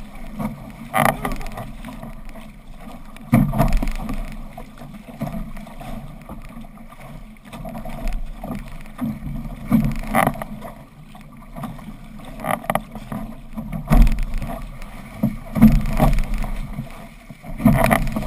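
Water rushing and splashing against the hull and outrigger float of a six-person outrigger canoe as it is paddled through chop. Louder splashes come irregularly, every two or three seconds.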